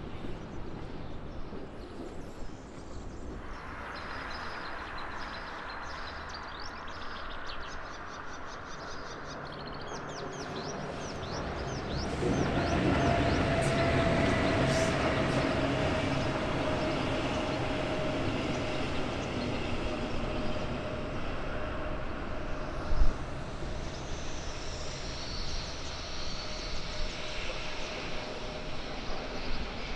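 Electric locomotive hauling double-deck passenger coaches past: rolling wheel-on-rail noise swells sharply about twelve seconds in, with a steady whine over it, then slowly fades. A single short thump comes near the middle of the pass, and birds chirp briefly before it.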